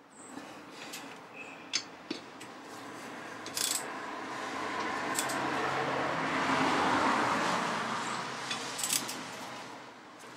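Socket wrench on steel wheel nuts being tightened: scattered sharp metallic clicks and clinks of the socket and tool on the nuts, a couple close together near the end. Under them a broad rushing noise swells up over several seconds and dies away.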